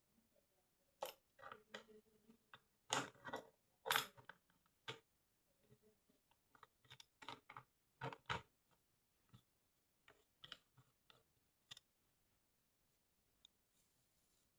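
Zenit EM film camera being handled: irregular clicks, taps and rubbing of its metal body and parts in the hands, the loudest about three and four seconds in, thinning out towards the end.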